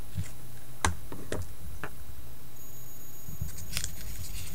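Fingers handling a BlackBerry Curve with its trackball out, picking tape from the trackball opening: three light clicks about half a second apart, then a short patch of scratching near the end.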